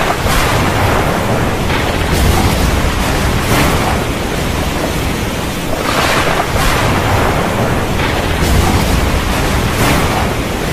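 Loud steady rushing noise of water, swelling briefly every couple of seconds.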